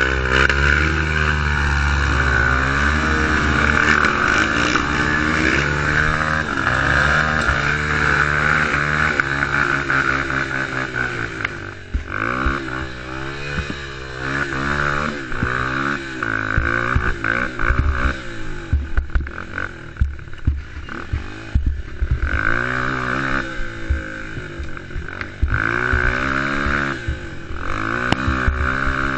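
Youth quad (ATV) engine running, with the revs rising and falling over and over as it rides a rough dirt trail. From about midway there are short knocks and rattles over the bumps.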